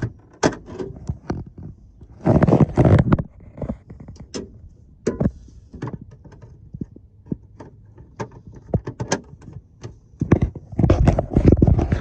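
Irregular clicks and knocks of handling inside a pickup cab, with two louder noisy scraping stretches, about two seconds in and again near the end.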